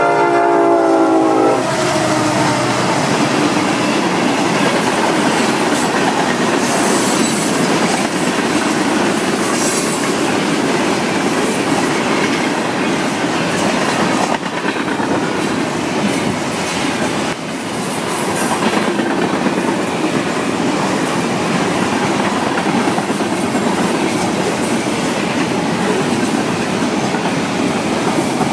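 Florida East Coast Railway freight train passing at close range. The lead EMD SD70M-2 locomotive's horn sounds for the first second and a half. Then comes the steady rumble and wheel clatter of tank cars and covered hoppers rolling past.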